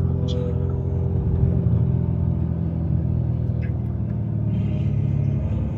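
Lamborghini Urus twin-turbo V8 and road noise heard inside the cabin while cruising: a steady low drone that holds at an even pitch.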